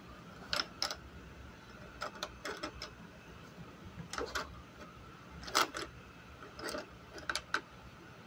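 Wooden graphite pencils clicking and knocking against one another and the tabletop as a hand shuffles them, in irregular light clicks, some in quick pairs, over a faint steady hum.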